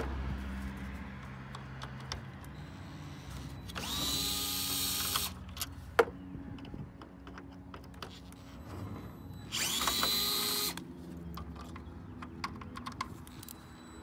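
DeWalt cordless electric screwdriver running in two short bursts of about a second each, whining up to speed as it backs out the screws holding the radar sensor to the grill housing. A sharp click in between and small handling clicks.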